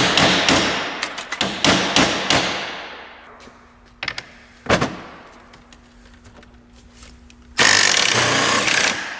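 A quick series of hammer blows ringing on a steel socket being driven onto a rusted, swollen radiator mounting fastener, then two single knocks. Near the end, a cordless impact tool rattles for about a second and a half as it breaks the rusty fastener loose.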